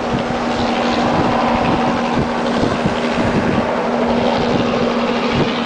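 Light helicopter climbing away just after lift-off: a steady engine whine over the noise of its rotor.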